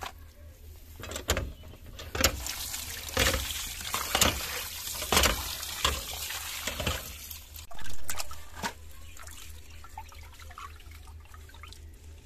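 Water from a hand pump pouring and splashing into a steel bowl as cut fish pieces are rinsed by hand, with sharp knocks about once a second for the first several seconds. Quieter sloshing in the bowl follows.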